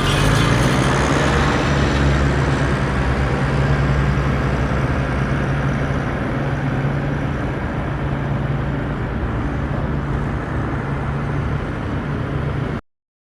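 Tractor engine running steadily with a low, even drone that eases off slightly. It stops abruptly near the end.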